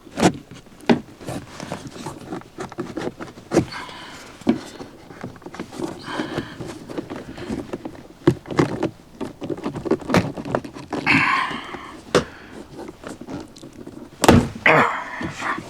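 Plastic interior door trim panel of a Tesla Model 3 being pried and pulled off the door: a string of sharp knocks and clicks as the tight retaining clips are worked, with short stretches of plastic scraping.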